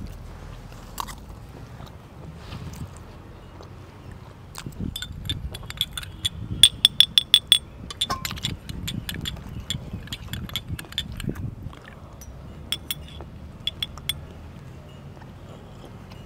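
Teaspoon clinking against a ceramic teacup. There are scattered single clinks, and about six and a half seconds in comes a quick run of ringing clinks lasting about a second as tea is stirred.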